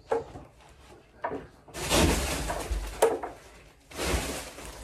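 A door sliding along its track for about a second, ending in a sharp knock, then sliding again briefly near the end.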